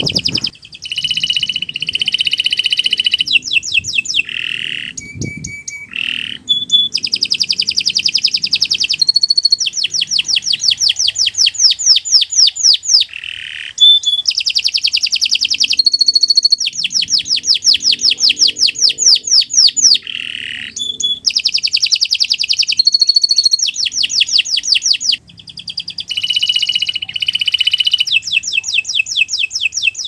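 Domestic canary singing a long, unbroken song, moving from one fast trill of rapidly repeated high notes to the next, with only brief breaks between phrases.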